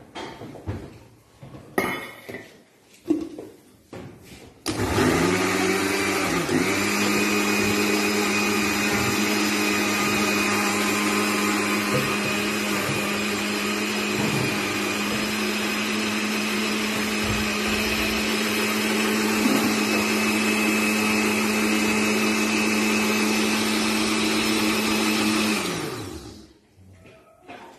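Countertop blender puréeing chopped red peppers: after a few light knocks as the pieces go into the jug, the motor starts about five seconds in, its pitch dipping briefly as the blades catch, then runs at a steady pitch for about twenty seconds before winding down near the end.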